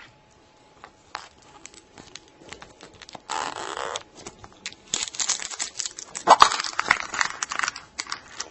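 Scattered light plastic clicks, then a plastic seal being torn about three seconds in. From about five seconds in comes a run of plastic crinkling, with one sharp click, as a plastic surprise egg and its wrappings are opened.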